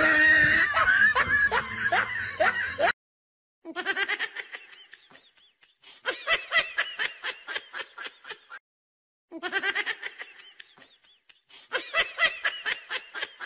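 Laughter in quick rhythmic bursts, the same laugh heard four times over with short gaps between, after about three seconds of dense, rough noise.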